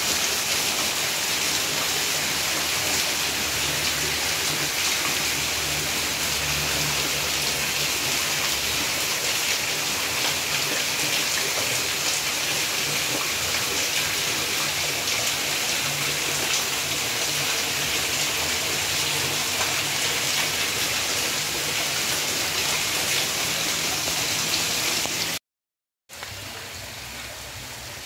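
Rain falling steadily and hard, with water running off the edge of a tiled roof. Near the end it cuts out for a moment and comes back quieter.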